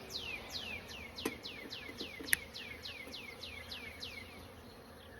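A bird repeating a fast series of downslurred whistled notes, about three a second, that stops a little after four seconds in, over the faint hum of honeybees around an open hive. Two sharp clicks come through, the second about two seconds in.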